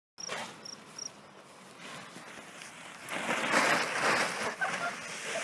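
Plastic tarp rustling as it is lifted and moved over grass, loudest for about a second and a half past the middle. Three short high chirps in the first second.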